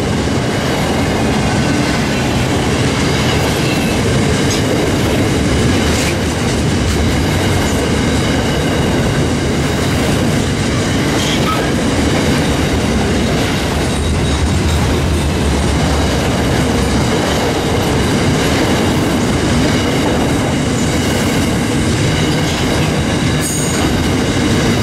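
Grain train's hopper wagons rolling steadily past at close range, wheels clacking over the rails, with a faint high wheel squeal over the steady rumble.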